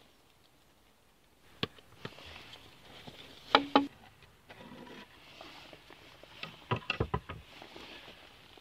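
Wooden bottom board of a beehive being gripped, knocked loose and slid out from under the hive: sharp wooden knocks and clacks, the loudest two about three and a half seconds in and a quick cluster near seven seconds, with scraping of wood in between.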